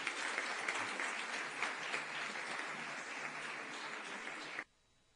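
Audience applauding, many hands clapping at once; it cuts off suddenly near the end.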